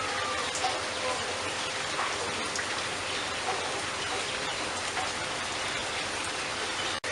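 Steady patter of rain, with a few faint, short bird chirps over it. The sound cuts out for an instant near the end.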